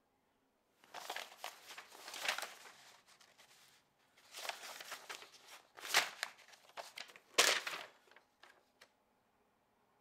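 Sheets of paper rustling and crumpling in three bursts, with a few small clicks near the end.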